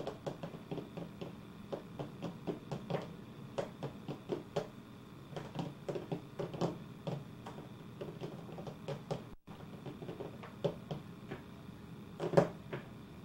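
Scattered light taps and clicks of hands and a spoon on a plastic high-chair tray and feeding bowl, irregular throughout, with one louder knock near the end. The sound cuts out for an instant about two-thirds through.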